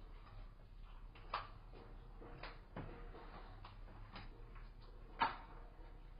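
Irregular sharp clicks and cracks from an Amur leopard cub chewing on a small carcass, the loudest about a second in and again near the end.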